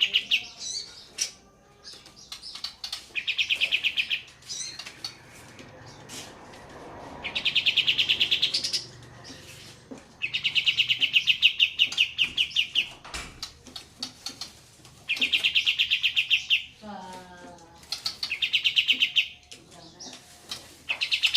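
Olive-winged bulbul (kapas tembak) singing its fast rolling trill, a rapid run of evenly pulsed high notes, in phrases of one to two and a half seconds repeated every few seconds. A brief lower, falling call comes between phrases near the end.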